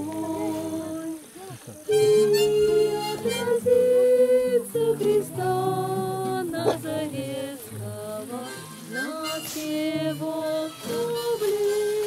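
Harmonica played in a neck holder over strummed acoustic guitar, coming in about two seconds in and playing a melody of held, reedy notes.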